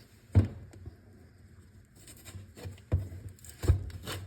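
Stiff plastic battery packaging being cut and pried open with a knife: a sharp knock about half a second in, then scratchy crackling and several more sharp clacks in the second half as the tough plastic resists.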